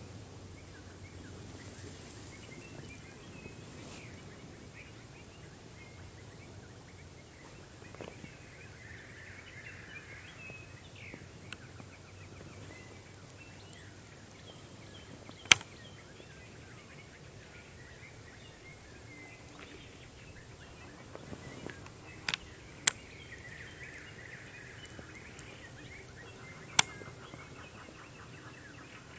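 Quiet outdoor ambience with faint bird calls, broken by a few sharp single clicks: one loud click about halfway through and three more near the end.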